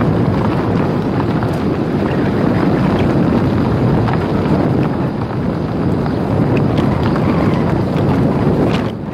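Car driving over a rough gravel road: a steady, loud rumble of tyres on gravel and road noise, with small stones ticking now and then and wind buffeting the microphone.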